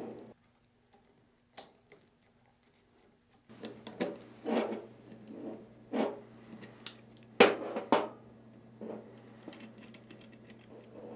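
Pliers clicking and scraping on the small metal nut that holds the leather pump cup on a Kinetic Water Ram's inner pump shaft, as the nut is worked loose. Nearly silent for the first few seconds, then irregular clicks and scrapes, the loudest two a little past halfway.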